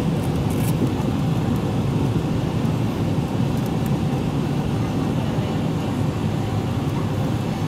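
Steady low cabin rumble of a Boeing 777-300ER on final approach: its GE90-115B engines and the airflow over the wing heard from inside the cabin, with an even level throughout.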